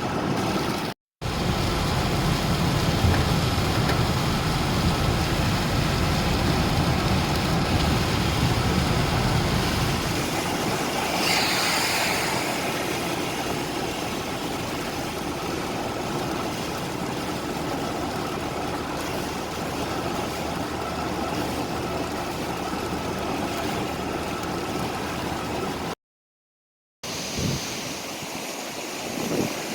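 Steady rushing of rain and running water mixed with street traffic. For the first ten seconds or so a vehicle engine rumbles low underneath. The sound drops out abruptly twice.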